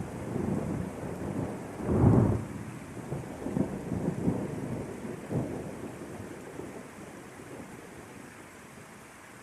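Thunder rumbling over steady rain. The rumble peaks about two seconds in, swells a few more times, and then dies away, leaving only the even hiss of the rain.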